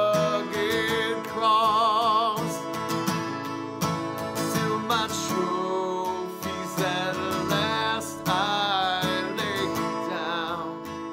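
Country-style music: strummed acoustic guitar under a melody held in long notes with vibrato.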